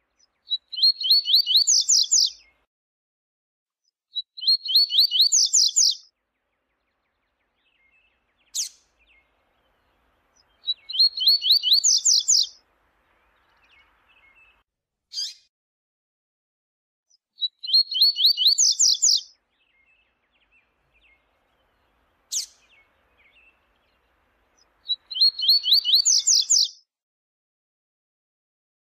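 Double-collared seedeater (coleiro) singing: five short, fast trilled phrases a few seconds apart, with three brief sharp call notes in the gaps between them.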